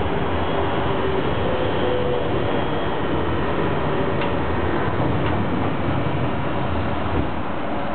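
Low-floor tram running along a street, heard from inside the car: a steady rumble of wheels and running gear, with a faint whine that fades after the first few seconds and a couple of light clicks about four and five seconds in.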